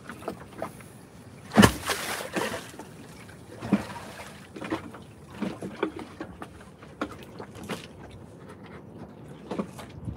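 Irregular knocks, taps and scrapes of a knife working a raw tuna fillet on a wooden cutting board, the loudest a sharp knock about a second and a half in, over a faint steady background.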